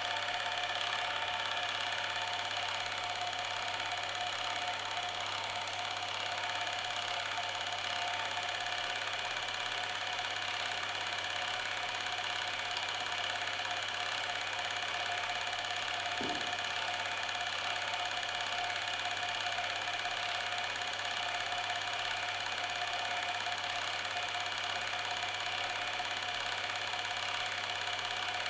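Steady mechanical whirring drone, like a small motor running, holding several constant tones over a hiss, with one short low thump about halfway through.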